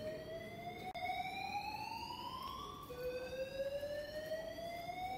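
Building evacuation alarm sounding: a whooping tone that rises slowly in pitch over a few seconds, drops back and rises again, signalling that the lounge is to be evacuated.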